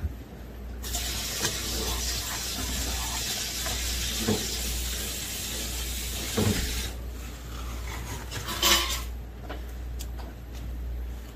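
A steady spray of water hissing for about six seconds, then cutting off suddenly, with a few light knocks and a short loud burst of spray near the end.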